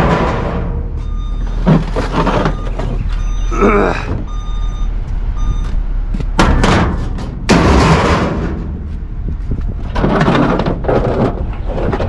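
Scrap metal being unloaded into a steel dumpster: a run of loud clanging, scraping crashes as pieces are dragged off a pickup bed and thrown in, about half a dozen, each lasting up to a second.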